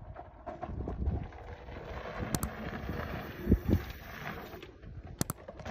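Wind buffeting a phone microphone outdoors, a low rumbling haze, with a couple of dull thumps about three and a half seconds in.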